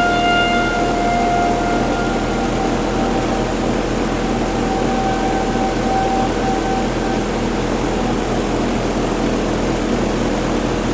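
Outdoor warning sirens sounding a steady tone that fades away within the first two seconds, then comes back faintly in the middle and fades again, over a loud, steady background rumble.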